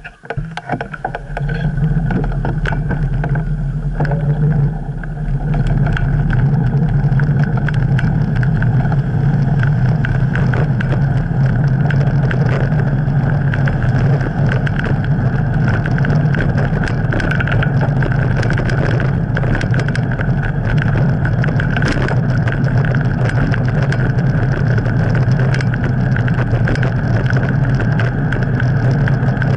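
Wind rumble and road vibration picked up by a handlebar-mounted camera on a bicycle under way. It rises abruptly in the first second or two as the bike gets moving, then holds as a steady, loud low rumble with scattered rattling clicks.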